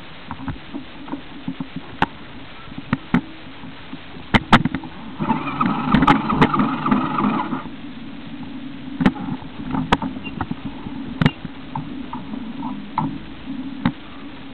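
Off-road vehicle working down a rough sand trail: a steady low engine hum with frequent sharp knocks and rattles from the bumps, and a louder, higher-pitched whine for a couple of seconds about five seconds in.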